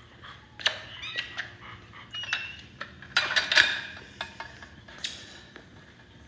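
Scattered light metal clinks, rattles and knocks, as of a chain-link kennel gate and its fittings being handled, loudest in a cluster about halfway through.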